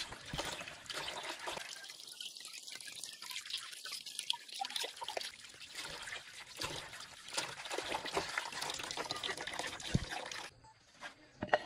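Water running from a bamboo spout into a plastic basin and splashing as hands rub and rinse plucked baby chickens in it. The water sound stops abruptly about ten and a half seconds in, and a single sharp click follows near the end.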